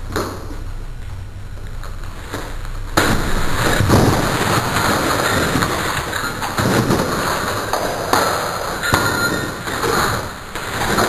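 Brick-and-plaster wall sections toppling onto a floor and breaking up: a long run of crashing and clattering bricks and rubble starting about three seconds in, with a short lull near the end.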